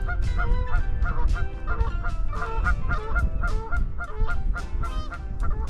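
Geese honking: several birds giving short honks over one another, several calls a second without a break.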